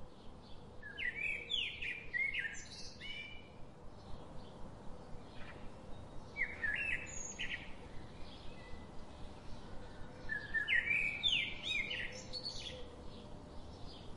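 Songbirds singing: three bursts of quick, sliding chirping phrases, each about two seconds long, spaced a few seconds apart.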